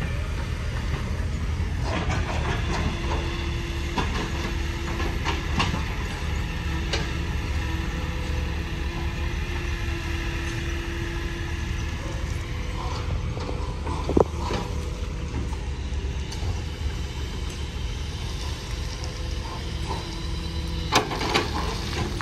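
Heavy diesel machinery running with a steady low rumble, with a held whine for stretches and sharp metal clanks now and then, the loudest about fourteen seconds in and two close together near the end.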